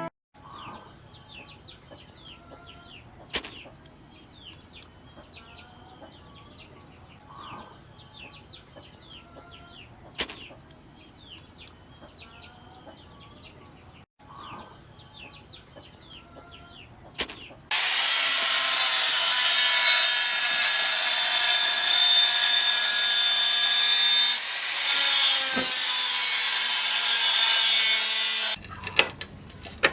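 A quiet stretch of faint repeated chirping with a few sharp clicks. About two-thirds through, a loud power tool starts up sharply and runs steadily, cutting or abrading the workpiece for about ten seconds, then stops abruptly near the end.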